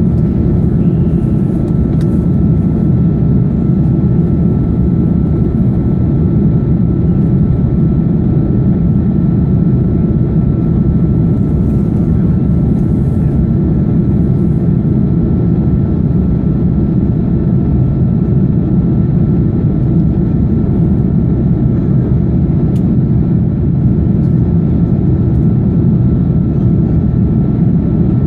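Steady cabin noise of an Airbus A330-300 in flight: its Rolls-Royce Trent 700 engines and the airflow past the fuselage make a deep, even noise, with a thin steady tone above it.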